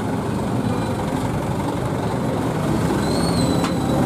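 Diesel bus engine running steadily with road noise. A brief high-pitched squeal with a click comes about three seconds in.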